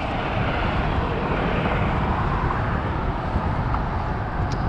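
Steady wind rumbling over the microphone on an open boat on choppy water, with no other distinct sound.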